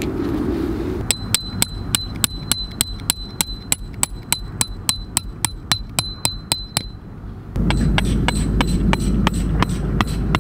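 A hammer driving steel tent pegs into the ground: rapid, evenly spaced strikes, about four a second, each with a bright metallic ring. From about seven seconds in, wind buffets the microphone and the strikes continue, duller, beneath it.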